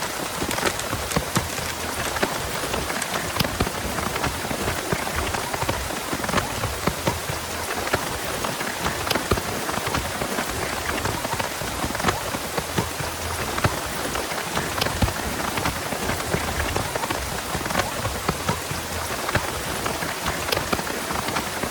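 Heavy rain falling steadily, with many sharp individual drop hits standing out against the constant hiss.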